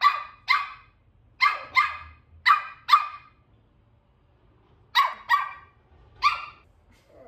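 Puppy barking in short, sharp, high-pitched barks, mostly in quick pairs: nine barks, with a pause of about two seconds before the last three.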